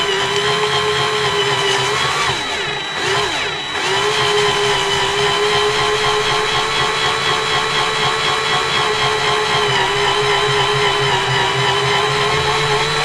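Power drill with a step drill bit running slowly, cutting a hole into an intake pipe, with a steady whine. Its pitch wavers for a moment about two to four seconds in, then settles again.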